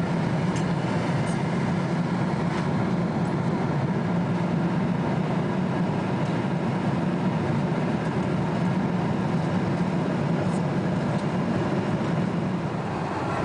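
Steady, low cabin drone of a Boeing 777-300 at cruise: engine and airflow noise heard inside the passenger cabin.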